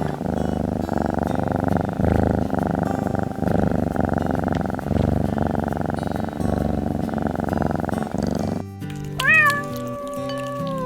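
Domestic cat purring, a steady fast rumble, until a sudden break about nine seconds in; then a cat gives a long meow that falls in pitch near the end. Background music plays throughout.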